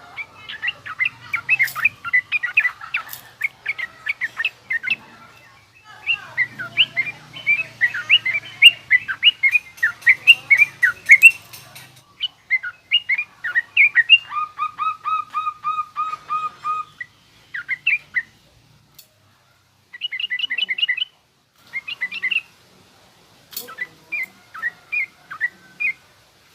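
Sooty-headed bulbul (trucukan) singing in rough, fast chattering phrases of short whistled notes, coming in bursts with pauses between them. About halfway through, it gives a run of evenly repeated notes.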